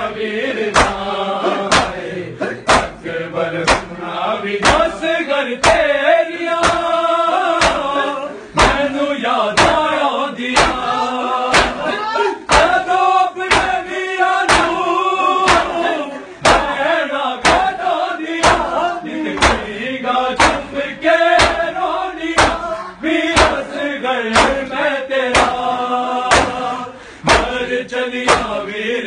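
Matam: a group of men chanting a mourning lament (noha) while beating their bare chests with open hands, the slaps landing in a steady beat under the voices.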